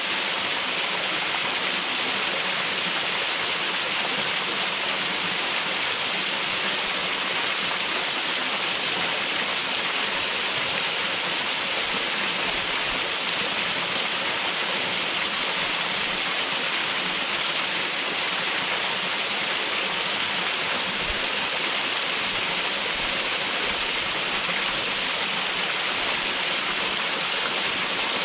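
Waterfall water falling and splashing in a steady, unbroken rush.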